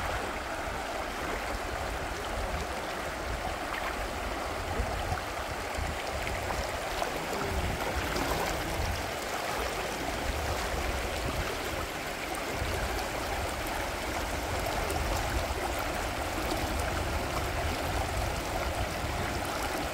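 Shallow, rocky river flowing steadily over stones, with water splashing and sloshing around a man crouched in the current. A low, uneven rumble runs underneath.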